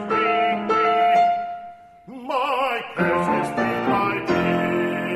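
Piano accompaniment of an art song, with a baritone briefly singing a note with wide vibrato about two seconds in, then the piano's closing chords held.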